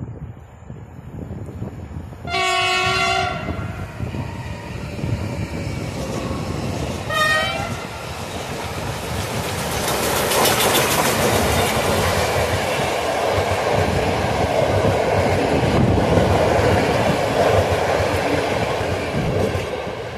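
Ol49 steam locomotive sounding its whistle twice, a long blast and then a short one a few seconds later, then passing close as it pulls away with a train, exhaust chuffing, followed by the coaches rolling by with a rhythmic clickety-clack of wheels on the rails, fading near the end.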